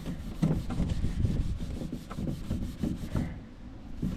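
Steel wool scrubbing chemical stripper into a stained wooden dresser, in repeated back-and-forth strokes a few times a second, growing fainter near the end. The stripper and steel wool are lifting the old wood stain.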